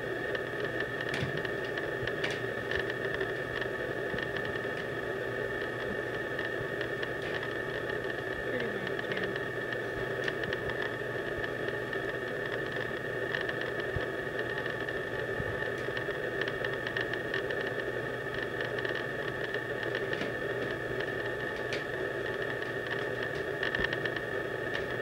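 A steady hiss with a high whine, with scattered faint clacks of plastic DVD cases being handled.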